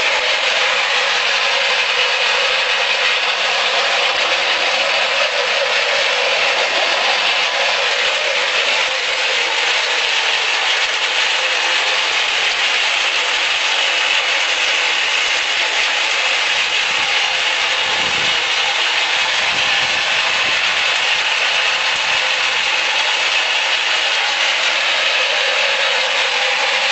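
Industrial meat grinder running while it grinds meat: a steady, even machine noise that holds without pause or change.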